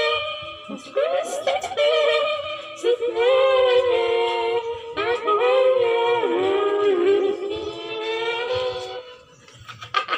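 A young man singing unaccompanied into a handheld karaoke microphone, in a high voice with long held notes that bend and slide. The singing stops about nine seconds in.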